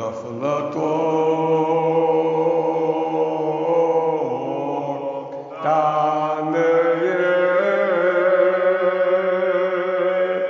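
An elderly man's solo voice chanting a Kashmiri marsiya, a Shia elegy, in long drawn-out melodic phrases with a brief break about halfway.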